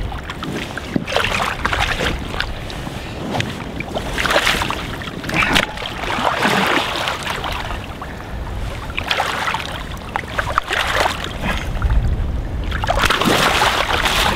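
Shallow water splashing and sloshing in irregular surges as a large sturgeon is handled in the water, over a low rumble of wind on the microphone.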